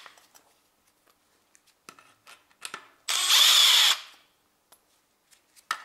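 A cordless power driver with a 10 mm socket spins out one of the oil level sensor cover bolts in a single run of about a second, roughly three seconds in. A few light clicks of the socket and bolt come before it and near the end.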